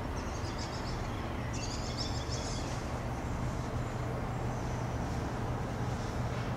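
Outdoor ambience of a steady low hum and rumble, with birds chirping in two short bursts in the first three seconds and faintly again about five seconds in.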